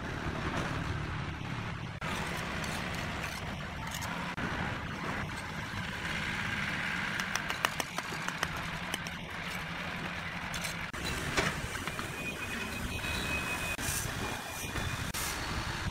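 Steady low mechanical hum with scattered sharp taps and clicks of a bricklayer's steel trowel on brick and mortar.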